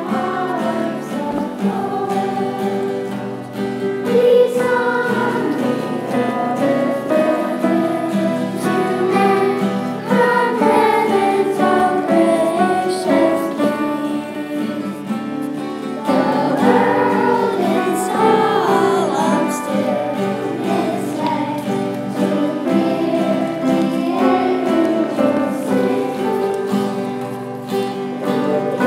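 Group of children singing a song in chorus, accompanied by woodwind instruments.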